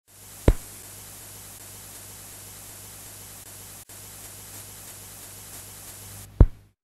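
Old-film soundtrack noise: a steady hiss with a low hum, broken by two loud pops, one about half a second in and one near the end, and a brief dropout near the middle.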